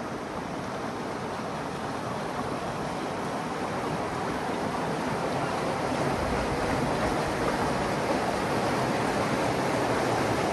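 Rushing water at a river weir, a steady wash of white noise growing louder throughout as the kayak closes on the weir's canoe pass.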